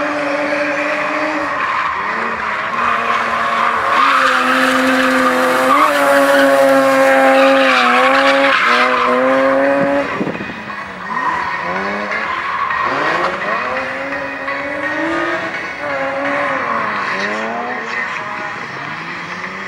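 BMW E30 drift car's engine held at high revs through a long slide with the tyres squealing, loudest over the middle of the slide. About ten seconds in the revs drop, then rise and fall again and again as the car keeps drifting with tyre squeal.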